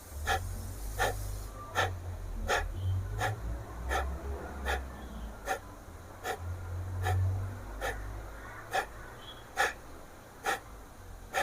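Kapalbhati pranayama breathing: a steady series of short, forceful exhalations through the nose, a little over one a second, each a sharp puff of air.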